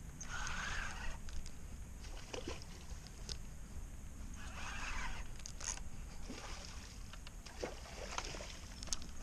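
Hooked redfish splashing at the water's surface as it is reeled in close: a few short bursts of splashing, a couple of seconds apart, with scattered small clicks between them.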